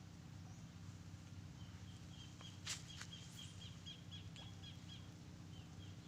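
A small bird gives a quick series of short, high chirps, about four a second, over a steady low hum. A single sharp click comes near the middle.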